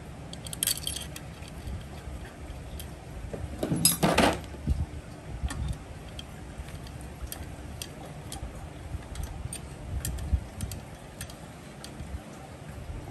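Metal hand tools and small engine parts clinking and ticking as they are handled, with a louder half-second metallic rattle about four seconds in.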